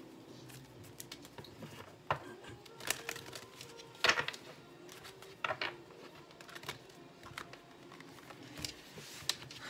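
Tarot cards being handled and shuffled: a string of light, irregular clicks and snaps, about ten over several seconds.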